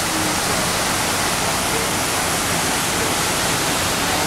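Steady rush of water cascading down the walls of the World Trade Center Memorial's South Pool.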